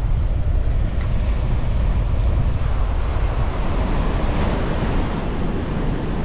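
Wind rumbling on the microphone over the steady wash of surf breaking on the beach.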